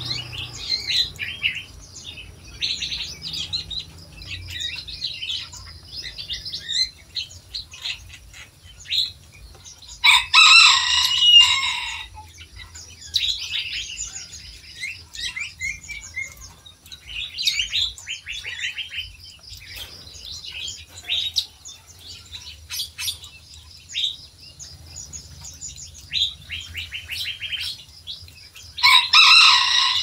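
A mix of small songbirds in an aviary chirping and twittering almost without a break, with two louder, longer calls of about two seconds each, around ten seconds in and again near the end.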